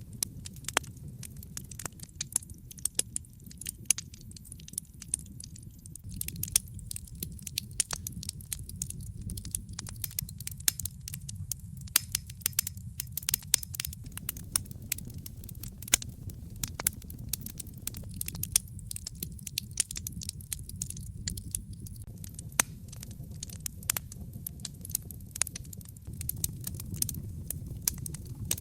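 Wood fire crackling, with many sharp, irregular pops and snaps over a steady low rumble of the flames.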